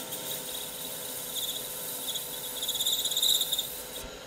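CBN lathe insert squeaking as it turns a sintered tungsten carbide shank on a 0.25 mm deep cut, over the steady hum of the lathe. The high, pulsing squeak grows loudest about three seconds in. It cuts, but it's not happy: the cut is at the machine's limit, or the insert could be worn out.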